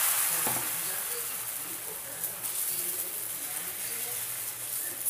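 Cornflour-and-maida batter sizzling on a hot griddle just after being poured, the hiss slowly fading.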